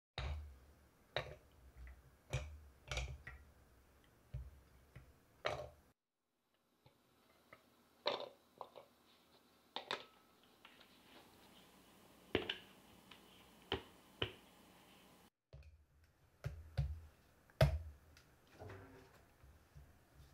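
Scattered light knocks and clicks of hard plastic as an electric mini chopper's bowl, lid and motor unit are handled and fitted together.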